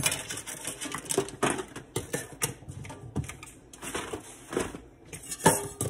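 Foam egg carton with eggshells being handled while kitchen scraps are gathered into it: a run of irregular clicks, crackles and knocks, the loudest knock near the end.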